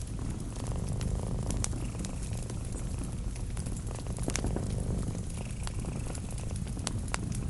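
A cat purring steadily in a low, pulsing rumble, layered with a wood fire crackling and giving off sharp pops now and then.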